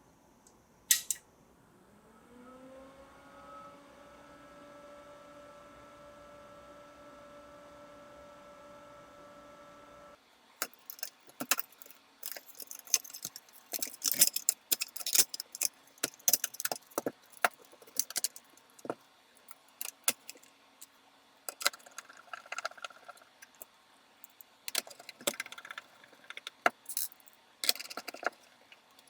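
A click, then a small electric motor spins up with a rising hum and runs steadily for about eight seconds before stopping abruptly. After it stops, small metal parts clatter and click irregularly, as when screws and panels are handled.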